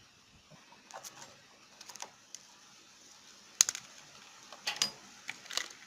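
Scattered light clicks and metallic taps of hand tools and screws on a generator's air filter housing as it is unscrewed, with one sharper click about three and a half seconds in.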